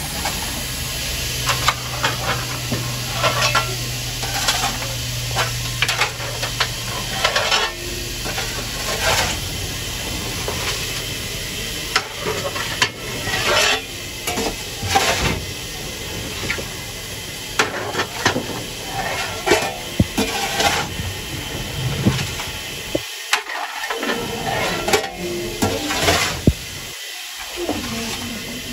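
Steam locomotive being hand-fired: a steel shovel scraping up coal on the footplate floor and clattering against the firehole, over a steady hiss of fire and steam. There are many short scrapes and knocks, and a low hum through the first seven seconds or so.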